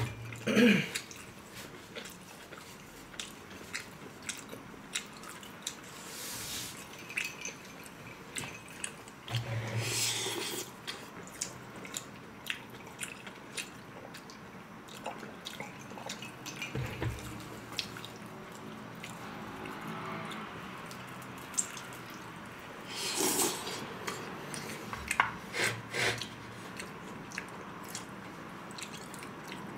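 Eating at a table: chopsticks clicking against plates and bowls, with mouth noises of chewing and a few louder clatters.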